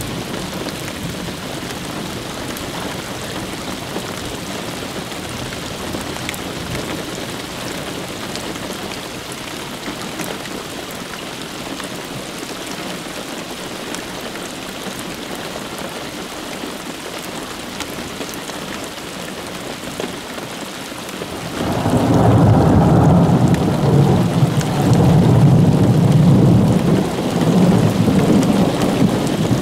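Steady rain falling, then about two-thirds of the way through a loud, low rumble of thunder starts suddenly and rolls on, rising and falling.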